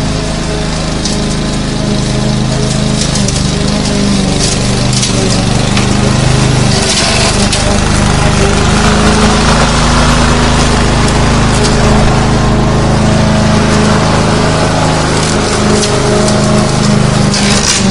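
Lawn mower engine running steadily while mowing, with an even hiss over the engine note; it grows a little louder over the first few seconds.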